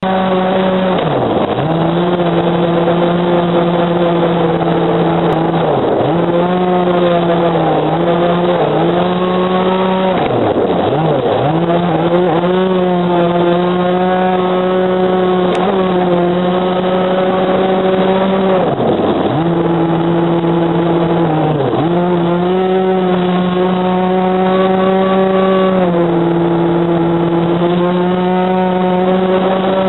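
Small 26 cc two-stroke petrol engine of a radio-controlled racing boat running at high revs, heard close up from on board. Its pitch drops sharply and climbs straight back about half a dozen times as the throttle is let off and reopened.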